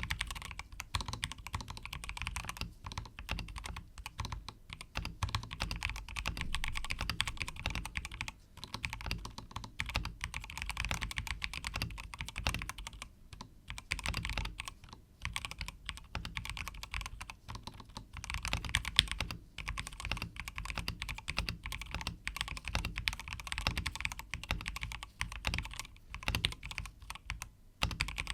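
Continuous fast typing on an Akko 5075S mechanical keyboard in stock form, fitted with Gateron Milky Yellow Pro linear switches and XDA-profile keycaps. The keystrokes come in quick runs with a few short pauses.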